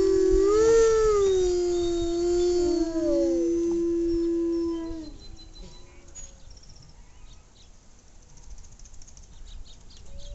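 Two or more canids howling together in long, drawn-out notes, one voice holding a steady pitch while another rises and falls. The howling dies away about five seconds in.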